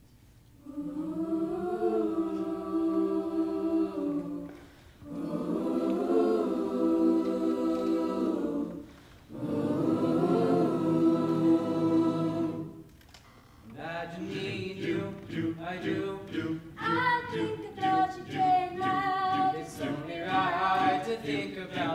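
Mixed high school choir singing: three long held chords of a few seconds each, with short breaks between them, then about fourteen seconds in a quicker, rhythmic passage.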